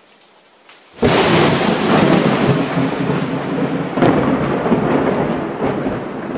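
Thunderstorm sound effect: thunder and heavy rain come in suddenly about a second in and carry on steadily, with a sharp crack of thunder about four seconds in.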